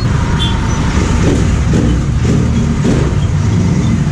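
Royal Enfield Interceptor 650's 648 cc parallel-twin running on the move, through its stock exhaust with the dB killer removed, under a heavy steady low rumble of riding noise.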